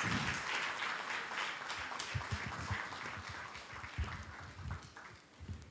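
Audience applause: many people clapping, dying away over about five seconds.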